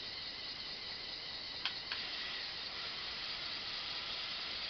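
Small electric motors and gearing of a remote-controlled LEGO Technic backhoe model running, a steady high hiss-like whir as the arm moves, with two quick clicks a moment apart about a second and a half in.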